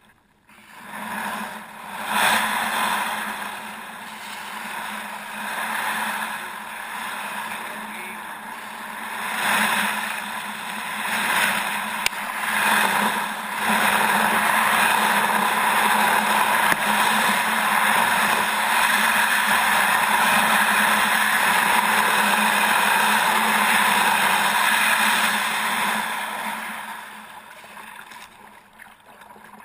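Kayak moving through icy lake water, making a steady rushing noise that builds, holds loud and even for a stretch, then fades near the end.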